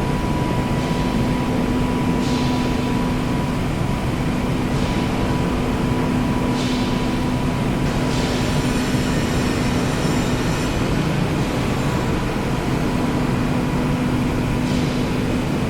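Metal lathe running with a steady hum. Brief scraping hisses come every few seconds as the cutting tool works the metal, with a longer, higher-pitched scrape about halfway through.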